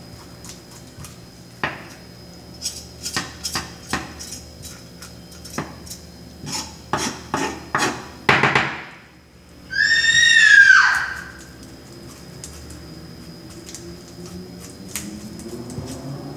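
Back of a knife scraping the scales off a small mojarra on a wooden cutting board: a run of quick, irregular scrapes. About ten seconds in comes a loud, high cry that slides down in pitch over about a second, of unknown source, and it is the loudest sound here.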